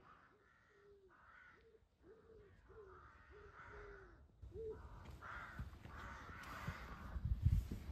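Crow cawing: a run of about nine short calls, evenly about half a second apart, ending about four and a half seconds in. After that comes a low rumble with a few knocks, loudest near the end.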